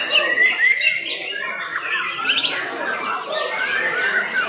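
White-rumped shamas (murai batu) singing in competition: several birds at once, with dense overlapping whistles, rising and falling glides, trills and harsher notes.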